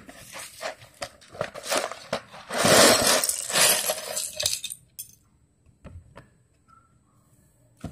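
Small plastic building-block pieces tipped out of a cardboard box, clattering onto a hard tiled floor: scattered clicks at first, a dense clatter for about two seconds in the middle, then a few single clicks as pieces settle and are moved.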